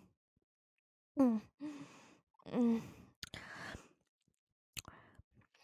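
A woman's breathy sighs and short moans, about three of them, each falling in pitch, with breathy hissing and a couple of sharp wet mouth clicks between them, voiced as a vampire feeding on a bite in the leg.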